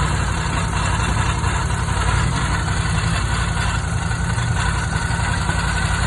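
Ducati Scrambler 1100 Pro's air-cooled L-twin engine idling steadily with a strange grinding noise whose cause the owner does not know.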